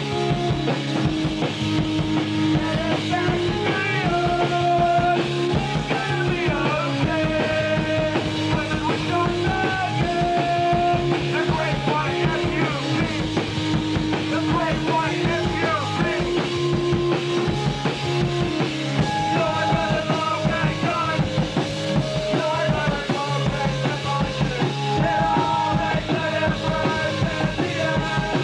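Punk rock band playing: a drum kit beating steadily under held instrument notes that change pitch every second or so.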